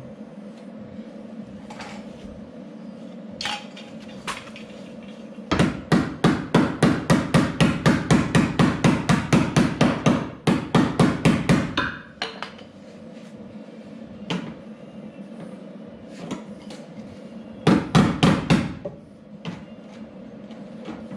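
Hammer striking car body sheet metal in a fast run of blows, about four or five a second for several seconds, then a shorter burst of blows near the end, with a few single knocks in between.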